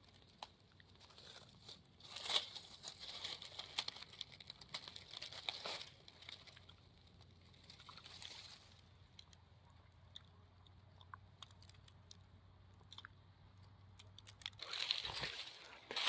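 Dry fallen leaves and grass rustling and crunching as a hand clears the leaf litter and pulls an aspen bolete from the soil. The rustle is faint and comes in short bursts, with a louder stretch near the end.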